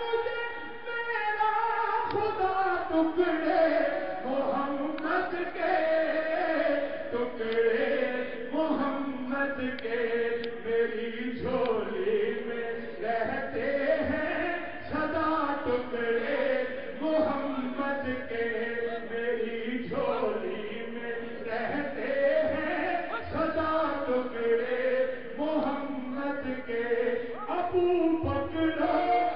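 A man's solo voice chanting devotional verse, unaccompanied, in long notes that bend up and down with brief pauses between phrases.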